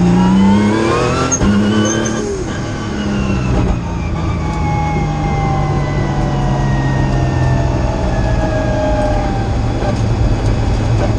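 Nissan March race car's engine heard from inside the cabin, rising in pitch as it accelerates hard for about two seconds, then after a brief lift running on with a long, slowly falling note as the car eases off.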